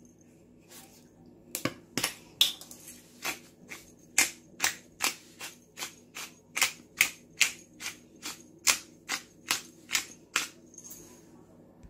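Pepper mill grinding black pepper, twisted in a steady run of crisp clicks, about two to three a second.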